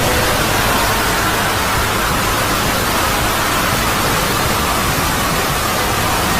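Loud, steady hiss of static-like white noise that cuts in suddenly and holds at an even level.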